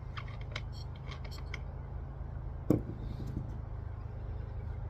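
Scattered light clicks, then one louder knock about three seconds in: hand tools and parts being handled while the spark plug is taken out of the brush cutter, over a steady low hum.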